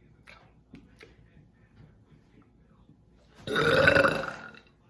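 One loud, drawn-out burp about three and a half seconds in, lasting about a second.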